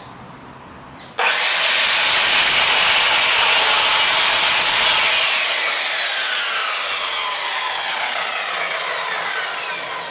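Electric compound miter saw switched on about a second in, its motor running up to a high steady whine as the blade is brought down through a thin wooden board. The trigger is then released and the blade winds down, the whine falling slowly in pitch and fading.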